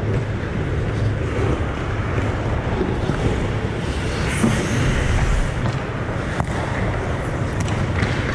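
Ice hockey arena ambience during a pickup game: a steady low hum and rushing noise, with a few sharp clacks in the second half.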